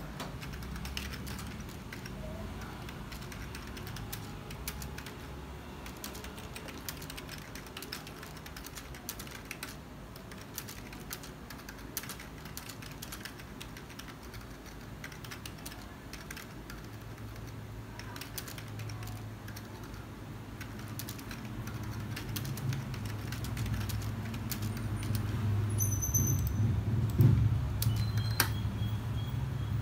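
Typing on a computer keyboard: an uneven run of key clicks over a low hum that grows louder in the last third, with a few louder knocks near the end.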